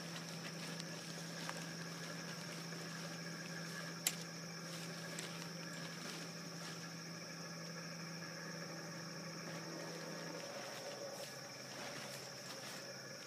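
Steady high-pitched drone of insects with a low steady hum underneath that stops about ten seconds in. Faint rustling of tent fabric and one sharp click about four seconds in.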